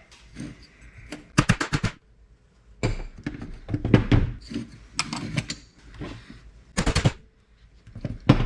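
Hammer striking the receipt printer's parts to break them apart, in a series of sharp blows: single knocks and quick clusters of several strikes, about one group every second.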